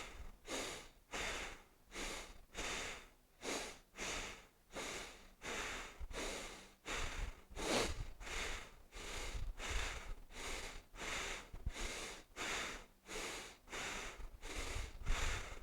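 A person doing bellows breathing (Bhastrika pranayama): forceful inhales and exhales through the nose, about two breaths a second in an even rhythm.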